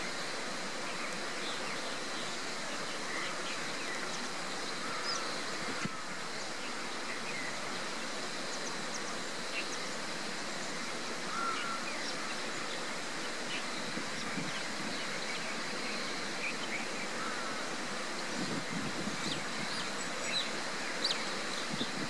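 Outdoor ambience: a steady even hiss with a faint high steady tone, and scattered faint short bird chirps, a few more of them near the end.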